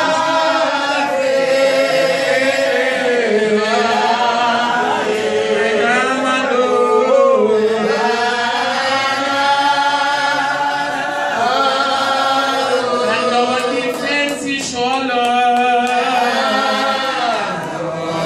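A man singing solo into a microphone, drawn-out notes that slide up and down in a chant-like line over a steady low held note.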